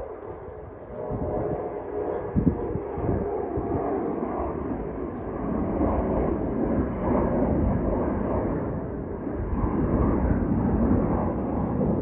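Engines of a rear-engined jet airliner climbing out after takeoff: a steady, rumbling jet noise that builds over the first couple of seconds and stays loud, with a few low knocks of wind on the microphone early on.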